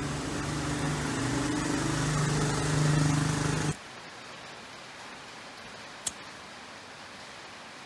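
A loud steady motor-like hum with a rushing noise, swelling slightly, cuts off abruptly about three and a half seconds in. Then a low hiss, with a single sharp click of a disposable lighter's flint wheel being struck and throwing sparks about six seconds in.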